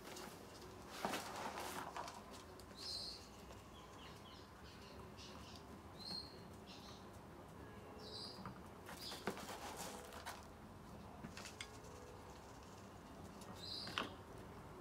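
Rustling and light clicks of old moist potting soil being sprinkled from a small plastic tub and pressed down by hand around a bonsai's trunk, with a sharper knock near the end as the tub is set down. Short bird chirps sound now and then in the background.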